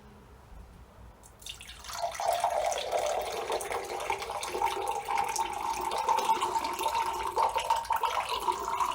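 Coconut water poured from a can into a large glass, starting about a second and a half in: a steady splashing pour that rises slightly in pitch.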